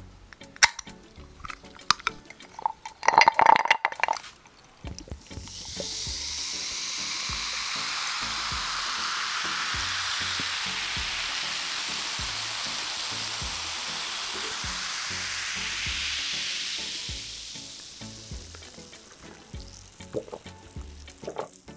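A few clicks and a ringing clink, then Coca-Cola is poured into a glass. Its steady, high fizzing hiss lasts about ten seconds and fades away.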